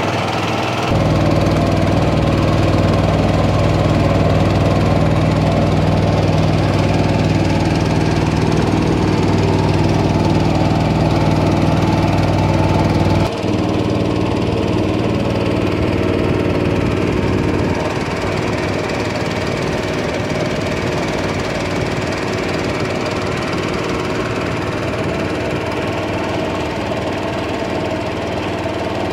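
Small single-cylinder engine of a peque-peque, a longtail-propeller river canoe, running steadily under way. About halfway through, its deep hum drops away abruptly and it runs lighter.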